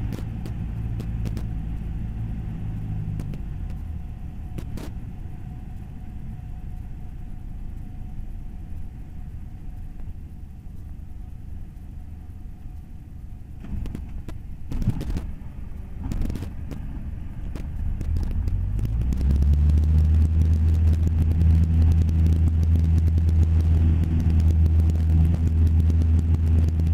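Single-engine Cessna's piston engine and propeller heard from inside the cockpit with wind noise, first at reduced power, with a few knocks around the middle. About eighteen seconds in, the engine is throttled up and runs loud and steady at full power.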